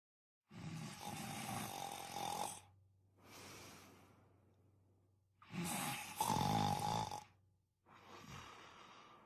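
A person snoring: two loud snores about five seconds apart, each followed by a quieter, longer breath.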